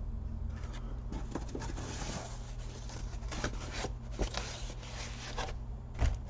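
Laptop parts being handled on a bench: scattered light plastic clicks and knocks, with a stretch of rubbing and rustling about two seconds in, over a steady low hum.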